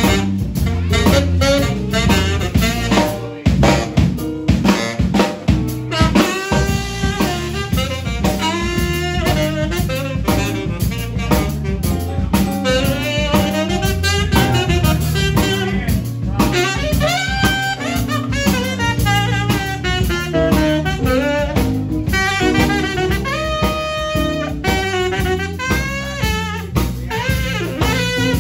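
Live band playing a jazz-blues instrumental: a saxophone plays phrases with bent notes over keyboard and drum kit. The first few seconds are mostly drums, with the saxophone lines coming forward about six seconds in.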